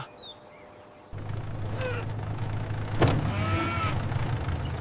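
A tractor engine starts running with a steady low rumble about a second in. Over it come a knock a little before the end and a few short high chirps.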